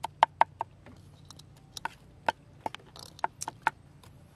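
Cleaver chopping red chilies on a wooden block: a series of sharp knocks, four quick ones at first, then after a pause of about a second more scattered, uneven chops.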